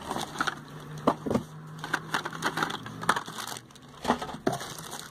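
Packaging being handled: plastic crinkling and rustling in irregular bursts, with a few light knocks.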